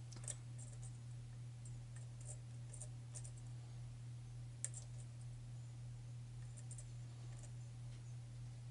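Faint, sparse clicks of a lock pick working the pins of a pin-tumbler challenge lock with a tight paracentric keyway, with a sharper click about a third of a second in and another near the middle. A steady low hum runs underneath.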